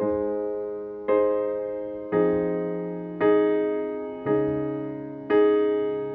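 Slow solo piano chords, one struck about once a second and left to ring and fade before the next, as the instrumental opening of a love ballad.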